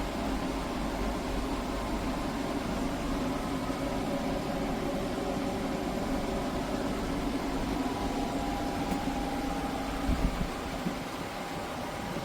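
KGOGO portable air conditioner running with a steady fan whoosh and low hum. About ten seconds in there are a few brief knocks, and then the low hum drops away, leaving it a little quieter.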